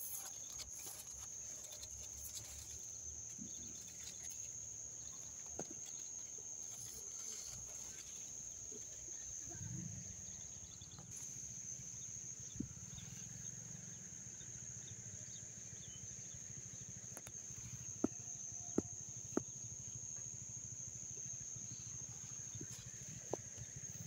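Crickets trilling in one steady, high, unbroken note. About ten seconds in a low drone joins, and a few sharp clicks sound near the end.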